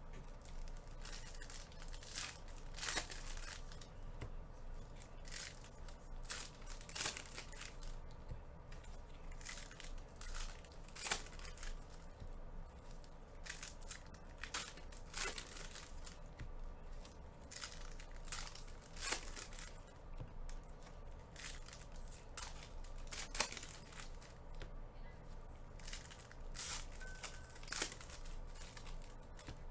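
Foil trading-card pack wrappers being torn open and crinkled, with cards handled and dropped onto a stack, in irregular rustles and sharp snaps every second or so.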